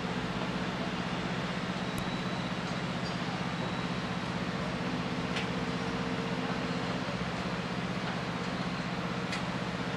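Engine of the heavy multi-wheeled orbiter transporter carrying a space shuttle orbiter, running steadily: an even low hum over a constant rumble.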